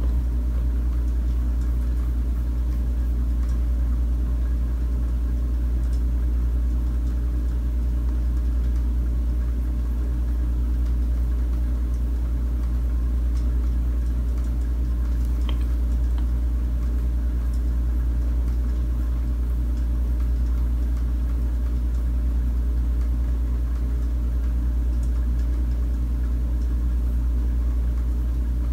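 A steady low hum that does not change, deep and even with a faint tone above it, like a motor or electrical hum.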